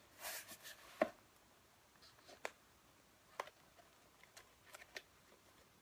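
A stack of paper sheets rustling and sliding as it is worked into the spine of a springback binder held open, with a few faint taps and clicks.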